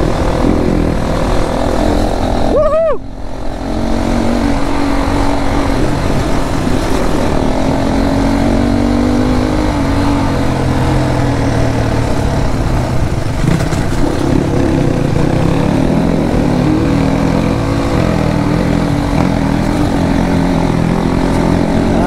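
Motorcycle engine running under way on a rough road, its note rising and falling with the throttle. About three seconds in, a brief sliding tone and a short dip in level.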